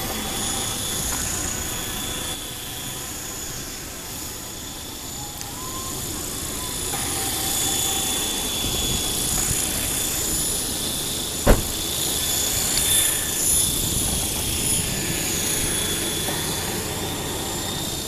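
Align T-Rex radio-controlled helicopter spooling up on the road: a steady high whine from its motor and spinning rotor that grows louder over the first half, with one sharp click about halfway through.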